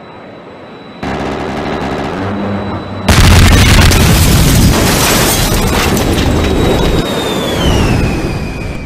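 Explosion sound effect: a rumble swells about a second in, then a sudden, very loud blast about three seconds in rumbles on for several seconds before fading near the end. A thin high tone rings through it and slides down in pitch shortly before the fade.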